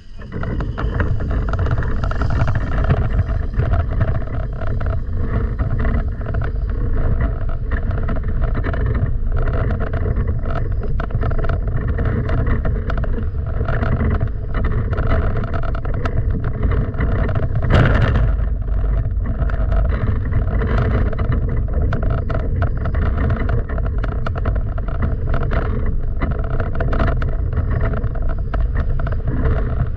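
An engine running steadily: a loud low rumble with a constant hum above it, and a brief louder rush of noise about eighteen seconds in.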